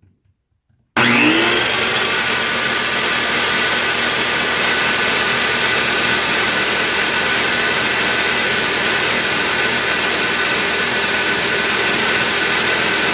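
Black & Decker 7 1/4-inch corded circular saw with a 12 amp motor, switched on about a second in. It spins up quickly, then runs freely with no load at a steady whine, a little over 4,700 RPM.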